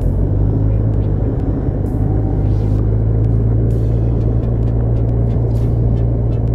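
Kawasaki Ninja 1000's inline-four engine running at steady low revs in slow traffic.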